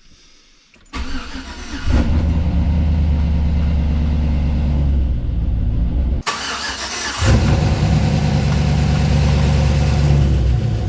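Junkyard 5.3 L LS V8 with a Truck Norris camshaft cranked by the starter for about a second, then firing right up on its first start after the engine swap, untuned, and settling into a steady run. About six seconds in the sound briefly breaks off, then the engine runs on louder.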